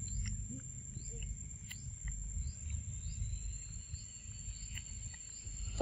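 Outdoor ambience: a steady low rumble with a small bird chirping short notes about twice a second and a faint high insect hum through the middle. Scattered soft clicks sit on top.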